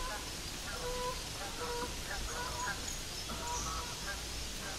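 Amazon parrots calling: a scattered string of short, pitched squawks and chatter notes, each a fraction of a second long.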